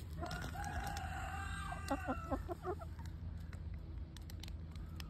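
A chicken calling: one long held call lasting about a second and a half, followed by a quick run of short clucks.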